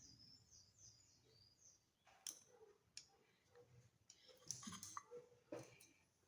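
Near silence with a few faint clicks and light knocks.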